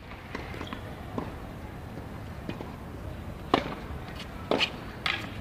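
Tennis ball being hit: two sharp knocks, a little past three and a half seconds in and about a second later, over steady outdoor background noise.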